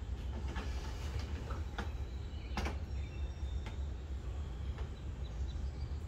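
Egg-turning tray sliding into the rack of a dishwasher converted into an incubator, with several short knocks and scrapes, the loudest about two and a half seconds in. A steady low hum runs underneath.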